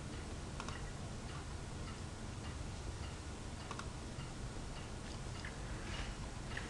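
A few faint, separate clicks at uneven spacing over a steady low hiss.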